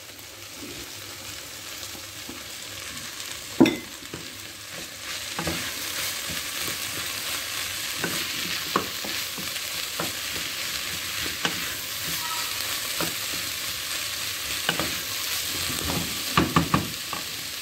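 Chopped mushrooms sizzling as they fry with onion and red pepper in a stainless steel pot, stirred with a wooden spoon. The sizzle builds over the first few seconds and then holds steady. The spoon knocks against the pot now and then, loudest about three and a half seconds in, with a quick run of knocks near the end.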